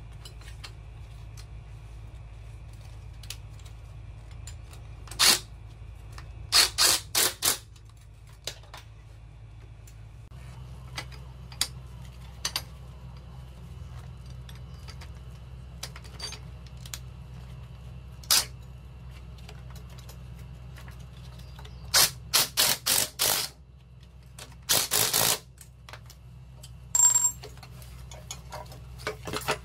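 Sharp metallic clicks and clinks, some single and some in quick clusters, as the steel hooks and threaded rods of a coil spring compressor are handled and fitted onto a strut's coil spring, over a steady low hum.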